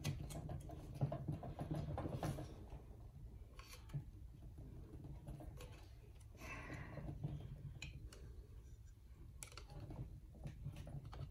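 Quiet, scattered clicks, taps and scrapes of a flathead screwdriver and fingers working inside an opened Secoh EL-80-15 linear air pump, fitting the magnet and its alignment shims, over a faint steady low hum.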